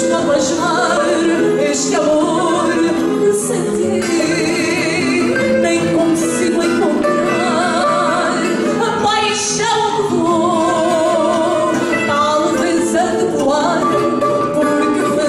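A woman singing fado, her voice wavering with vibrato, over instrumental accompaniment.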